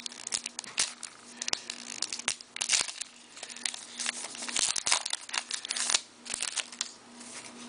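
Hockey card pack wrapper being torn open and crinkled, with irregular crackling and rustling as cards are handled.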